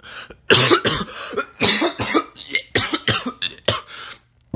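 A young man coughing hard in a long fit of about ten repeated coughs, close to the microphone; he says he is a little sick.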